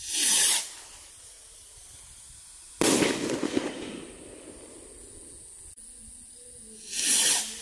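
Consumer 1.3G firework from a Pyro Mafia Mobsters crate launching with a short whoosh, then a sharp bang about three seconds later as it bursts, crackling for about a second. Another launch whoosh comes near the end.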